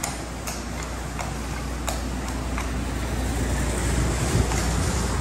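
A horse's hooves clopping on a concrete floor at a walk, about one step every two-thirds of a second, fading out after about two and a half seconds. Under them a steady low rumble like wind on the microphone grows louder.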